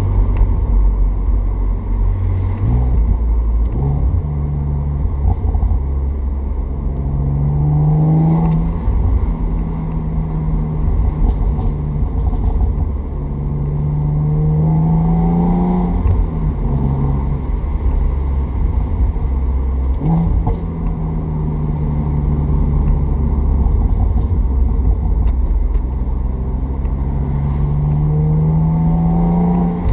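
BMW Z4 3.0i's straight-six engine under way. Under light acceleration the engine note climbs slowly several times. On downshifts the revs jump up and then ease off, with short sharp exhaust crackles scattered through.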